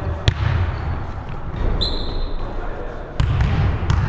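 A basketball bouncing on a hardwood gym court, with a sharp sneaker squeak about two seconds in, echoing in a large sports hall.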